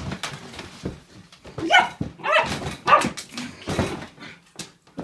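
Standard poodle puppy barking: a run of about four short barks, starting about a second and a half in.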